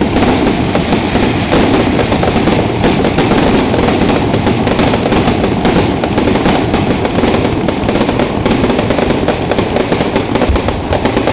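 Fireworks going off in a dense, unbroken run of rapid crackles and pops.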